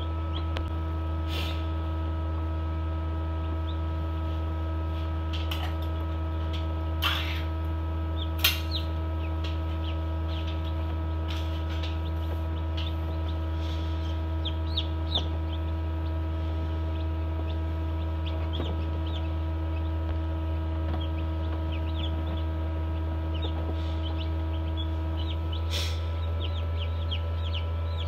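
Newly hatched chicks peeping faintly and often inside a forced-air egg incubator, over the steady hum of its fan. A couple of sharp knocks come about seven and eight and a half seconds in.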